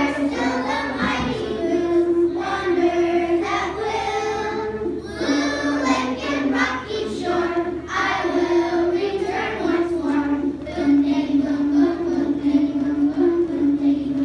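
A group of first-grade children singing a song together in unison, holding long notes.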